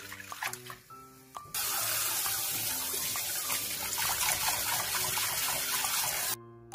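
Hands swishing soaked greens in a water-filled stainless colander with small splashes, then a kitchen tap runs hard onto them from about one and a half seconds in and cuts off suddenly near the end. Background music with steady low notes throughout.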